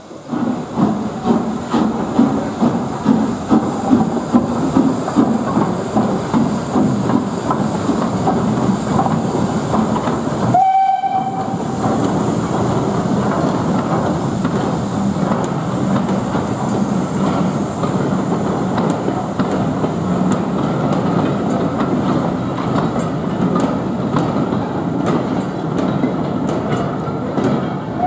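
Steam-hauled train on the move: a continuous rumble of the locomotive and carriages with clicking over the rail joints, pulsing unevenly in the first ten seconds. About ten seconds in, after a sudden break, a short whistle note sounds, and then the rumble runs on steadily.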